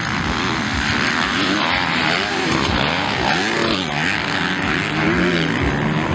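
Several motocross bike engines revving as the riders race, the pitch rising and falling over and over as they work the throttle.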